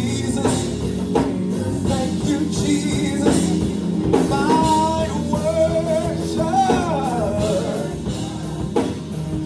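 A gospel choir and lead singer singing with instrumental accompaniment. From about halfway, a solo voice holds long, wavering notes, then slides down.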